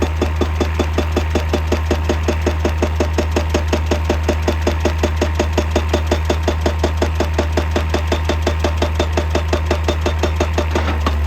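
Hydraulic rock breaker on an excavator hammering rapidly and evenly, about five blows a second, over the steady drone of the excavator's diesel engine.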